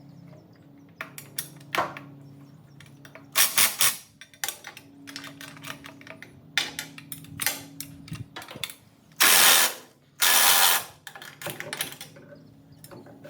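Hand tools at work on a truck exhaust: a ratchet wrench clicking, with scattered clicks and clatters. About two-thirds of the way in come two loud, noisy bursts of roughly a second each.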